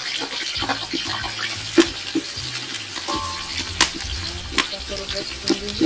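Chopped onions frying in hot oil in a cooking pot, a steady sizzle, with sharp clicks of a spoon stirring against the pot.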